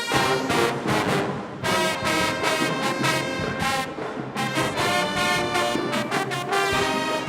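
Marching band playing loud brass chords, trombones and trumpets, punctuated by sharp drum hits.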